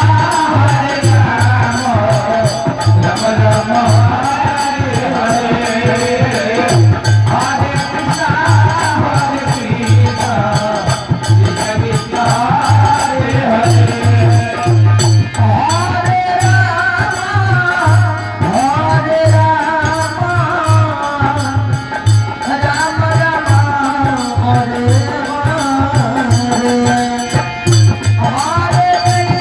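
Hindu devotional kirtan: a voice singing a wavering melody over a fast, steady drum beat and jingling rattle-like percussion.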